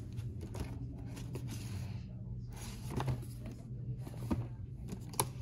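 Cardboard action-figure boxes handled on a wire peg rack: light rustling and scraping with a few short knocks, the sharpest near the end, over a steady low hum.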